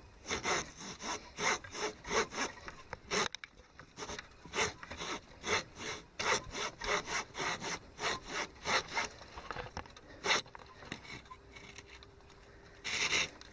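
Hand saw cutting through a downed cedar log, strokes back and forth at about two a second. After about nine seconds the strokes thin out, with one louder stroke near the end.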